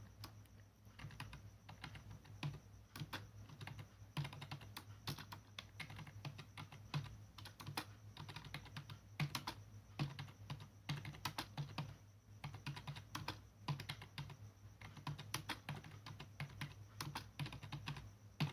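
Computer keyboard typing in quick, uneven key presses, several a second, during a number-row drill on the 7 and 8 keys.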